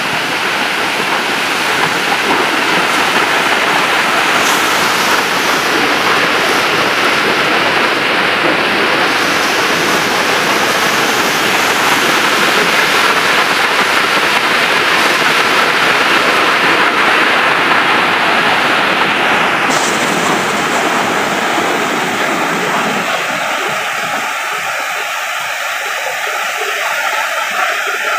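Waterfall water cascading down a sloping rock face in a loud, steady rush. About twenty seconds in the rush turns thinner, losing its deepest part, as the water splashes over a nearer rock lip.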